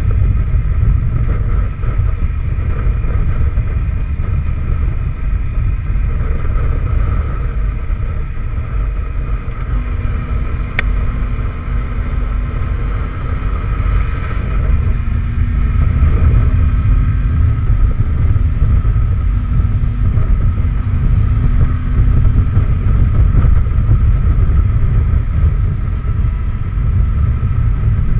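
Benelli TRK502X's parallel-twin engine running at road speed, heard from on board the bike over a heavy low rumble. A single sharp click about eleven seconds in.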